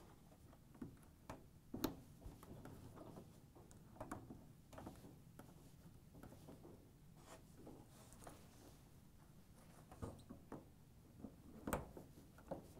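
Faint handling sounds of plastic wire-harness connectors being pressed onto a dryer's control board: a few sharp clicks as the locking tabs snap in, with light rubbing of the wires between them.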